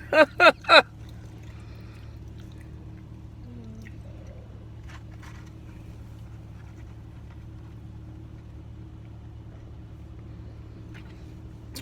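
Three short, loud voice sounds in the first second, then a steady low hum typical of a parked car's engine idling, with a few faint clicks and rustles.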